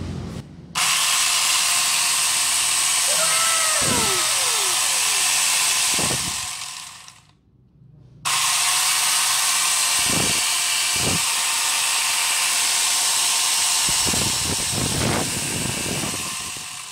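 Angle grinder fitted with a chainsaw adapter running free with its chain spinning and not cutting anything. It is switched on twice, for about six and then about eight seconds, coming up to speed abruptly and winding down after each run.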